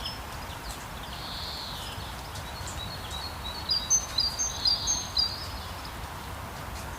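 Steady rain hiss, with a bird calling a quick run of short high chirps from about three and a half to five seconds in.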